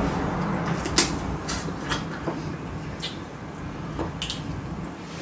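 Crab shells cracking and snapping: a few short, sharp clicks about a second apart.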